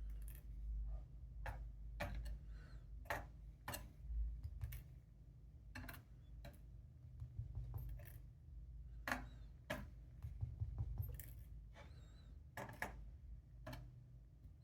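Irregular small metal clicks and taps as the springs are worked out of the disassembled DOM ix Gamma lock cylinder with a tool, over a low steady hum.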